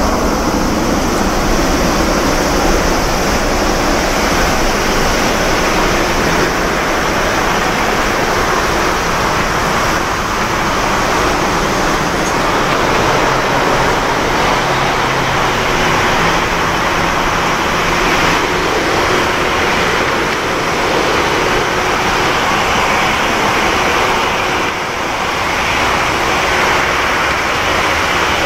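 Boeing 787-9 jet engines at takeoff power: a loud, steady rush of jet noise as the airliner rolls down the runway and lifts off, dipping briefly about three seconds before the end.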